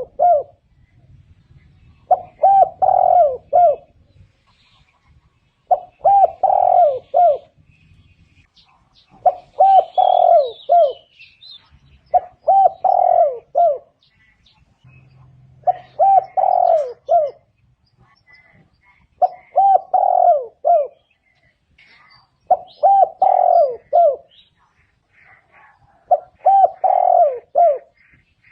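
Spotted dove cooing its song: a phrase of three or four soft, hoarse coo notes, repeated about every three and a half seconds, eight times over. Faint chirps of small birds can be heard between the phrases.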